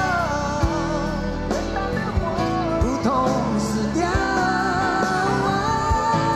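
Live pop-rock band with a male lead vocalist singing over drums and bass. The voice holds a long note in the second half.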